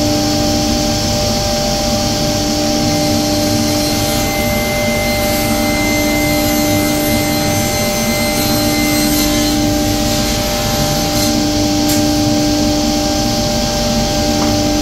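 A workshop machine's motor running steadily: a constant hum with an even hiss over it.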